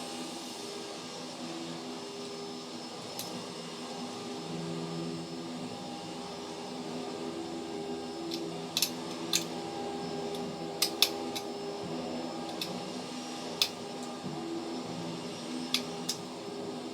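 Sharp clicks and snaps of small parts being pried and handled while a camera is taken apart, about ten scattered clicks, most of them in the second half. Underneath is a steady background hum.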